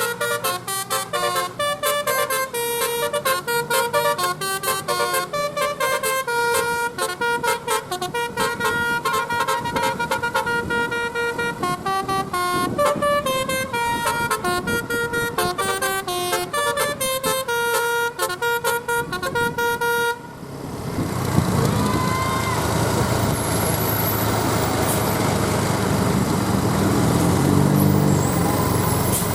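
Indonesian bus's 'telolet basuri' multi-tone musical horn playing a quick stepping melody of bright notes for about twenty seconds. It cuts off abruptly and is followed by a steady noisy outdoor din.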